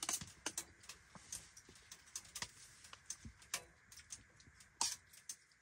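Scattered light clicks and taps, irregular and about once a second, with a louder one near the end: a serving utensil knocking and scraping against a cooking pot and plates as pasta is dished out.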